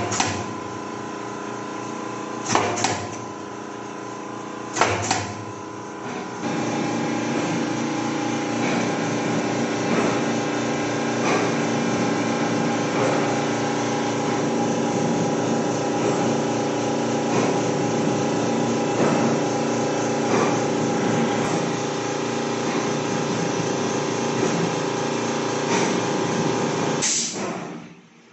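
Pneumatic corner cutter of a rigid-box grooving machine firing three times, each a sharp clack with a rush of air. About six seconds in an electric motor starts and runs steadily, with faint clicks every second or so. One more loud air stroke comes near the end.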